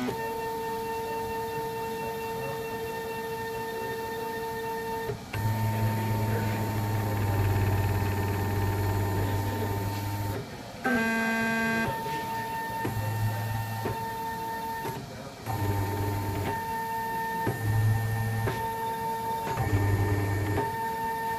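Stepper motors of a CNC-driven chocolate 3D printer whining at steady pitches that change every few seconds as the axes and paste extruder move. In the second half a low hum switches on and off in short stretches.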